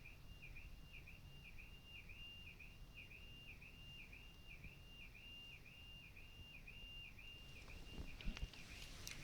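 Car alarm sounding faintly: a steady high tone broken by a chirping dip about twice a second.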